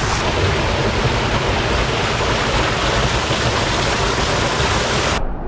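Steady rushing of water close to the microphone, loud and even, whose hiss cuts off abruptly near the end.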